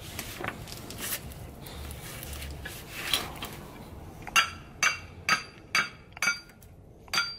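A hammer strikes an old, seized Datsun 510 front brake rotor to knock the hub out of it, the hub starting to come loose. A few lighter knocks come first, then a run of sharp blows about two a second in the second half, each with a metallic ring from the rotor.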